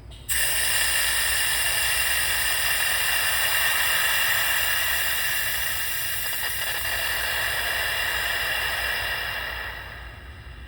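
Compressed air hissing through the control valve's pneumatic positioner and actuator, starting abruptly and dying away near the end.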